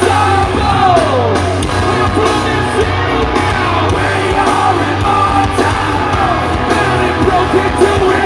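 A metal band playing live and loud: electric guitars and drums under shouted and sung vocals, recorded from among the audience.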